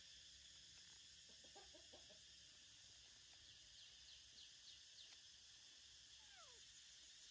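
Near silence: faint outdoor ambience with a few faint animal calls. There is a short cluster of low notes about one and a half seconds in, some quick high chirps around four seconds, and a single falling call about six seconds in.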